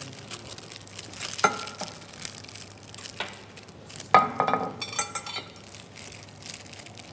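Soft plastic-bag crinkling and handling noise as crumbly cheese is pressed onto breaded chicken escalopes in a stainless-steel pan, with two short metallic clinks against the pan. The louder clink comes about four seconds in.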